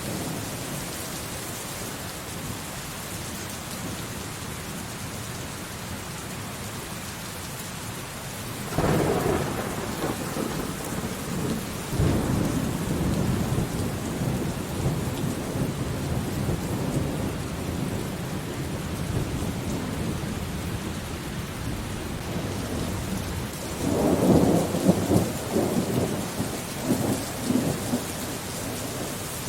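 Thunderstorm: steady rain falling throughout, with a thunderclap about a third of the way in that rolls into a long rumble, and a second crackling peal of thunder near the end.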